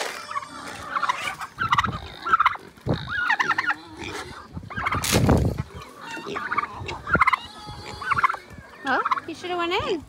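A turkey calling and gobbling repeatedly in short bursts, with a run of rapid, rattling, falling notes near the end. There is a brief loud bump about five seconds in.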